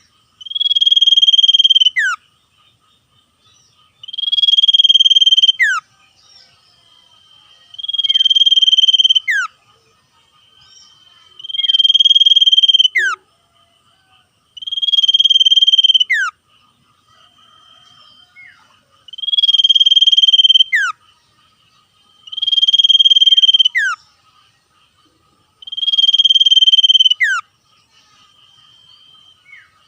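Cipoh (common iora) singing in rapid trills: a long buzzy trill held on one pitch, ending in a sharp downward note, repeated about every three and a half seconds, eight times.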